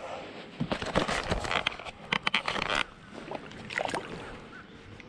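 Knocks and rustles of handling aboard a fishing kayak, then a bass splashing at the surface as it is released over the side, about four seconds in.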